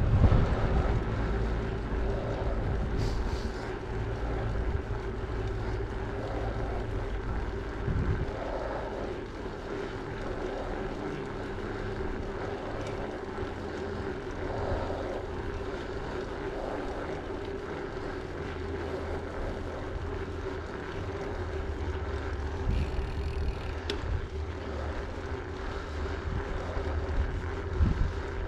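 Bicycle rolling along a paved road: wind rumbling over the microphone and tyre noise on asphalt, with a steady humming drone throughout.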